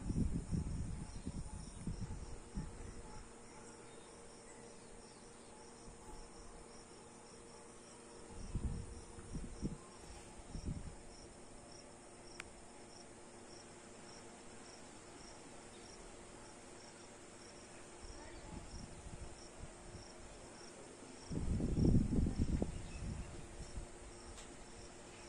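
Cricket chirping in a steady, even rhythm over a faint high hiss. Low rumbles on the microphone come near the start, around eight to eleven seconds in, and loudest about twenty-two seconds in.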